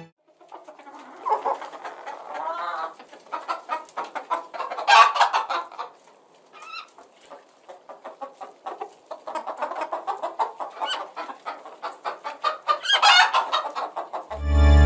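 Farmyard poultry calling in quick short notes, with louder calls about five seconds in and again near the end.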